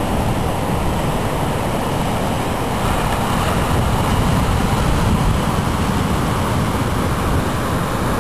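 Ocean surf washing onto a sandy beach, a steady rush that swells slightly midway, with wind rumbling on the microphone.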